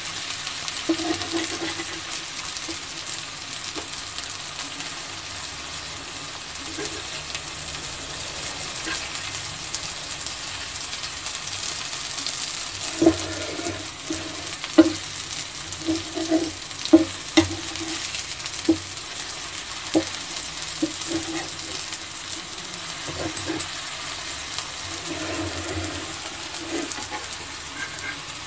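Raw banana slices shallow-frying in oil on a tawa, sizzling steadily. From about halfway through, a spatula knocks and scrapes on the pan several times as the slices are turned over.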